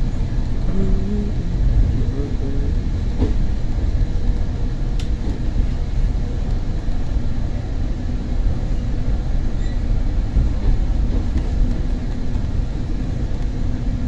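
Passenger train running at speed, heard from inside the car: a steady low rumble of wheels on the track with a constant rushing noise.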